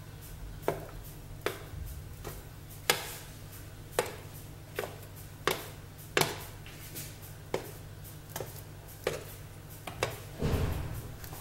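Sharp knife scoring slashes into soft bread dough in a perforated metal baguette tray: a row of short, light clicks, about one every three-quarters of a second, as each cut is made. A steady low hum runs underneath.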